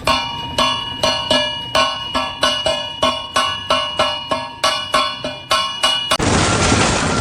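Rapid ringing metallic strikes, about three a second, each with the same bell-like tones. About six seconds in they stop and give way to a loud burst of noise.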